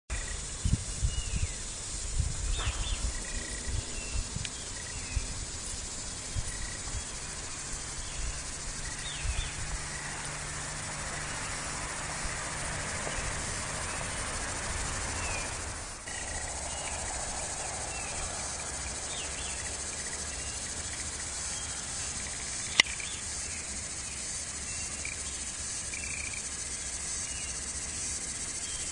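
Outdoor summer ambience: insects chirring steadily and high-pitched, with scattered short chirps over it. Wind rumbles on the microphone in gusts during the first ten seconds or so, and there is a single sharp click about two-thirds of the way through.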